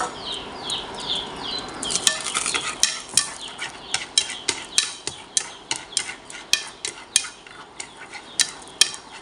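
Wooden chopsticks stirring minced garlic frying in oil, with sharp irregular clicks against the pan from about two seconds in over a light sizzle. Repeated high chirps are heard in the first two seconds.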